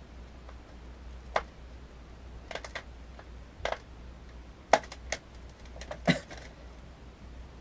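Twisted latex modelling balloons being handled and worked by hand. Scattered short clicks and squeaks come at irregular intervals, about seven or eight over several seconds.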